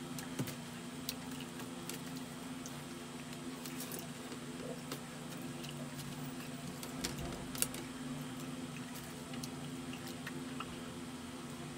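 Close-up mouth sounds of chewing fried chicken: scattered soft wet clicks and smacks, one sharper click about two-thirds through, over a steady low hum.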